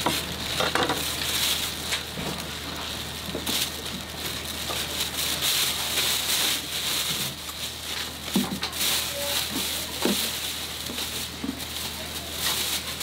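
Thin plastic bag and disposable plastic gloves crinkling and rustling as sliced pork intestines are scooped into the bag and it is twisted shut, with many small sharp crackles over a steady low hum.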